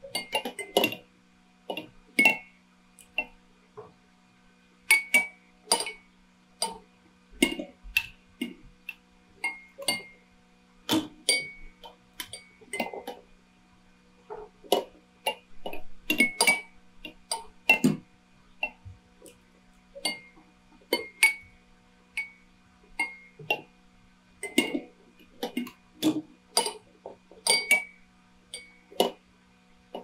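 Many drinking-bird toys tipping and clinking against their glasses of water, an irregular stream of taps, many ringing briefly like struck glass. A steady low hum runs underneath.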